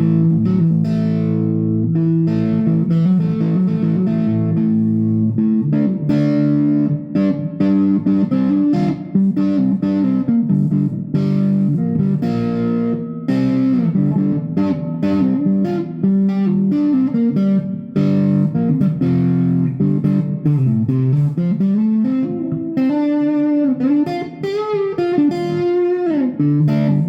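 Stratocaster electric guitar played through distortion with its middle and neck single-coil pickups wired in series: sustained chords and riffs, with notes gliding in pitch in the second half.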